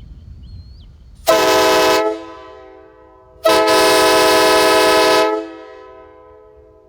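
Homemade PVC replica of a K5LA train horn sounding two blasts, a short one and then a longer one, each a steady chord of several tones that trails off in an echo.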